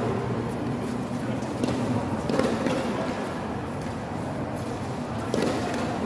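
Players' footsteps stepping and shuffling on an indoor hard tennis court, with a few sharp knocks, over a reverberant hall murmur of faint voices.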